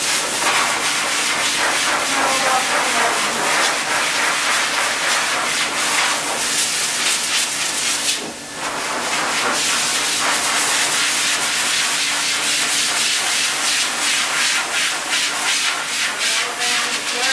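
Pet grooming dryer blowing a steady rush of air into a poodle's coat, with a faint steady motor hum beneath. The airflow dips briefly about eight seconds in.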